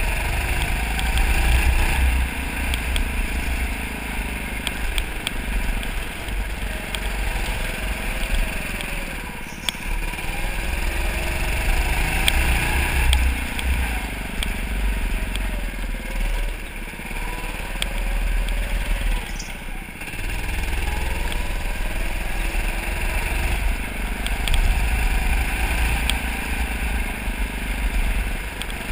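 Indoor racing go-karts running at speed, the motor's pitch rising and falling over and over as the kart brakes into corners and accelerates out of them, over a heavy low rumble of vibration and wind on the kart-mounted camera, with occasional small rattles.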